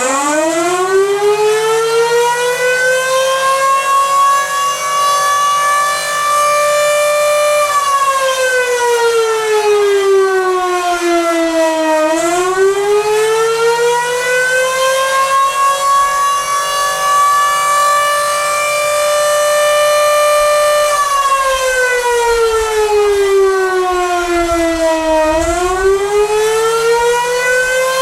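Federal Signal Model 5B civil-defense siren sounding the Attack signal. Its tone climbs to full pitch and holds, falls away, winds back up from about 12 s in, falls again, and starts another rise about 25 s in. It squeaks as it begins each wind-up, which the owner puts down to likely dry bearings.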